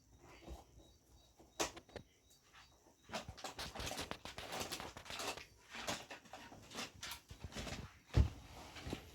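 Handling noises of TV parts being worked by hand: a few clicks, then steady rustling and small knocks, with one heavier thump about eight seconds in.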